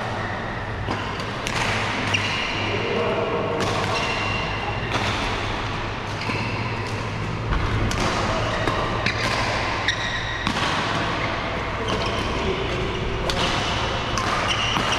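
Badminton rackets hitting shuttlecocks in rallies, sharp hits every second or so, with footfalls and distant voices echoing around a large sports hall over a steady low hum.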